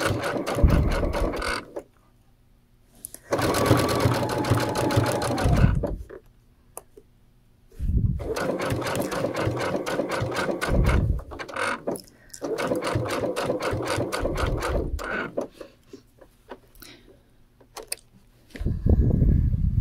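Brother computerized sewing machine with a dual-feed foot stitching binding onto a quilt, running in five short runs of rapid, even needle strokes with brief pauses between them as the fabric is guided along.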